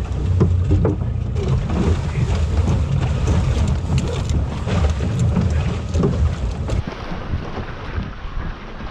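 Wind buffeting the microphone aboard a Core Sound 17 sailboat, with short flapping and knocking from the sail and rigging as the sails are hoisted. About seven seconds in the rumble drops away to lighter wind and water.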